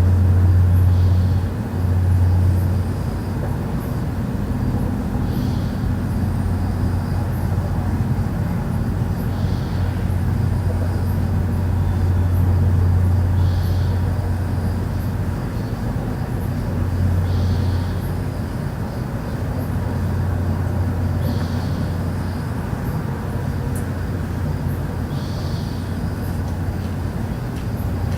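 A deep, steady droning hum that holds on without a break: the unexplained low 'strange sound' recorded in Stockton. Faint, short high sounds recur about every four seconds over it.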